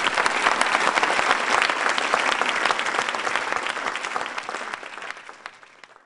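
Audience applauding, dense and steady, fading away over the last couple of seconds.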